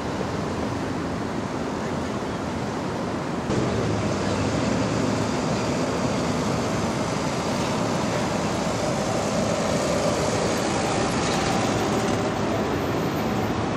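City street traffic: a steady wash of vehicle and road noise, which gets louder about three and a half seconds in.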